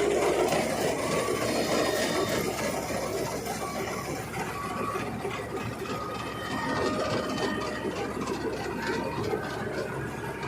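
Combine harvester running, with a steady mechanical rattle and clatter.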